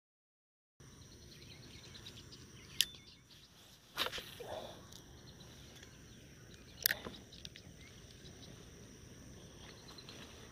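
Pond-edge outdoor ambience: a steady, faint, high-pitched insect chirring over low background noise, broken by three sharp clicks about three, four and seven seconds in.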